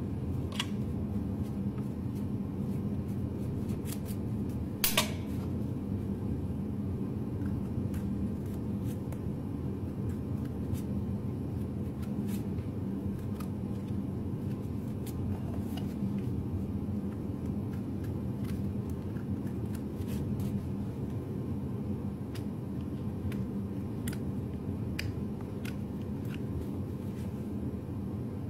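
Hoof knife paring horn from the sole of a horse's hoof: scattered short, sharp clicks and cuts, one louder about five seconds in, over a steady low hum.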